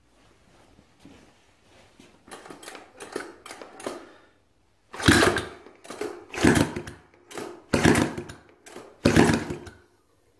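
Rebuilt Honda ATC 90 single-cylinder four-stroke engine being turned over by hand for a compression test: a few softer strokes, then about seven louder, even strokes, slightly more than one a second, about five seconds in. The compression gauge climbs to about 130 psi.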